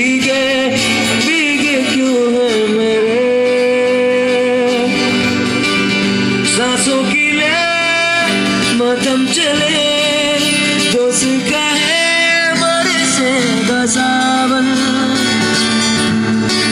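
A man singing a melody with held, wavering notes to acoustic guitar accompaniment.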